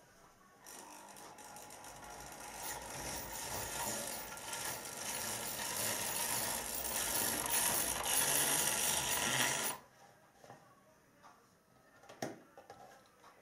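Model Hymek (Class 35) diesel locomotive running on the layout: its small electric motor and gears whir, growing louder as it comes nearer, then cut off suddenly as it stops. A single sharp click follows about two seconds later.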